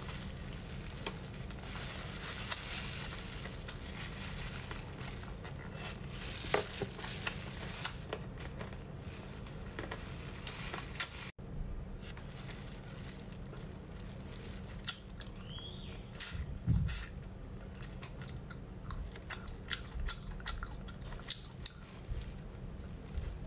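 Close-miked eating sounds of glazed braised pork ribs being bitten and chewed: wet, sticky smacks and small crunchy clicks. A brief gap of silence about halfway through.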